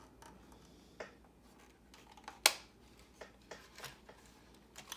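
Light clicks and taps from hands handling a small RC truck, with one sharp snap about two and a half seconds in as the truck's cab door is shut.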